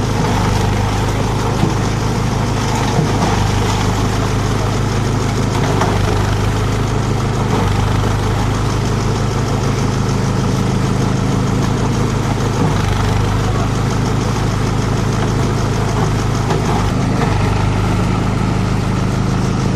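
Multi-purpose chopper-shredder-grinder machine running steadily with a constant low, engine-like drone and no change in speed.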